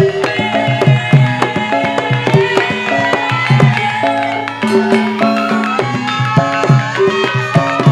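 Javanese gamelan accompaniment for a lengger and topeng dance: kendang hand drums beat a steady rhythm under bronze metallophones playing held notes that change step by step.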